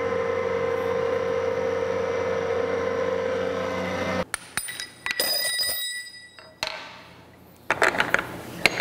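Carlton radial drill running with a steady hum, cut off abruptly about four seconds in. Then comes metallic clinking and bright ringing strikes as the drill bit is taken out of the spindle, with a quick cluster of sharp clinks near the end.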